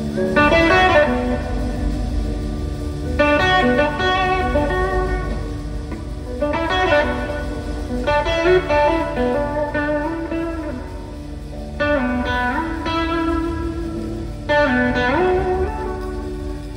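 Live blues-rock band playing an instrumental passage: an electric guitar solo in phrases a few seconds apart, with notes gliding up and down in pitch, over the band's steady bass and drums.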